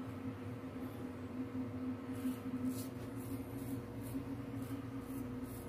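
A razor scraping stubble through shaving lather: faint, short, high rasping strokes, about two a second from about two seconds in, over a steady low hum.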